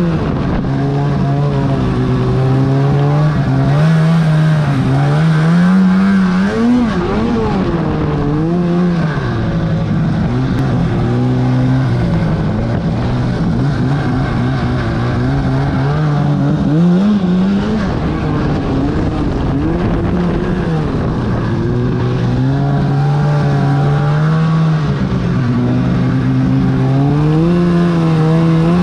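2008 Arctic Cat F1000 Sno Pro snowmobile's two-stroke twin engine running under way, loud and steady, its pitch repeatedly rising and falling as the throttle is opened and eased off.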